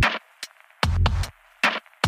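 Background electronic music with a drum-machine beat. The bass drops out at the start, leaving three sparse drum hits with near silence between them.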